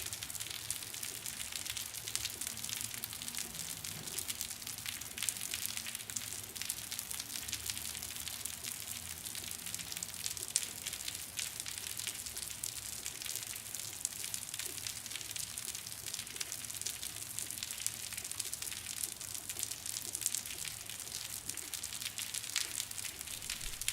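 Steady rain falling on concrete, a dense patter of many small drop impacts, with water dripping.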